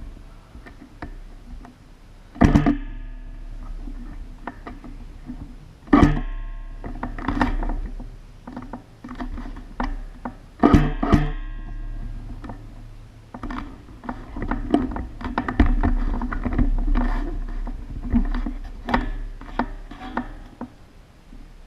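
Music with plucked guitar: loud strummed chords that ring out about every four seconds, then a busier run of shorter notes in the second half.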